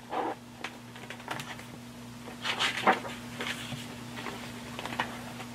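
Pages of a large hardcover picture book being handled and turned: soft paper rustles and small taps, the loudest about two and a half to three seconds in, over a faint steady hum.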